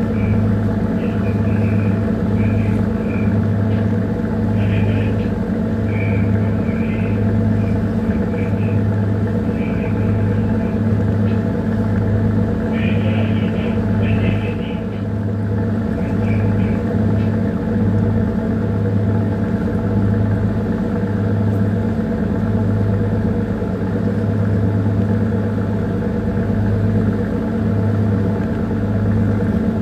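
A bunker tanker's diesel engine running steadily underway, heard on board as a loud drone with a low hum that throbs roughly once a second.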